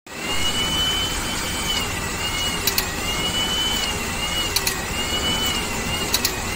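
Hydraulic pump running with a high whine that dips and recovers in pitch, driving an Enerpac S3000X square-drive hydraulic torque wrench as it tightens a nut. Sharp double clicks come from the wrench three times, about every two seconds, as it cycles.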